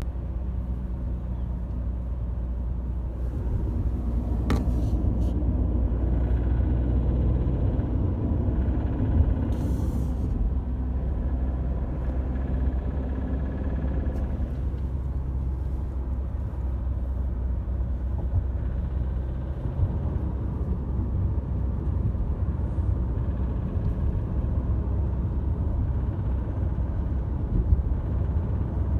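Opel Astra J's 1.7 CDTI (A17DTR) four-cylinder turbodiesel running under throttle, a steady low drone that swells for the first half and then settles, with a sharp click about four and a half seconds in. The owner reports a strange noise only on acceleration, peaking around 2,000 rpm, and suspects wrong valve timing after a timing belt change.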